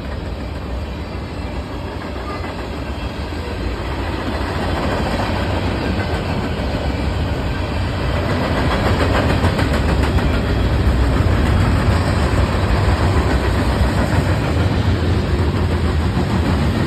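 Freight train rolling past, its steel wheels clicking over the rail joints over a continuous deep rumble that grows louder about halfway through.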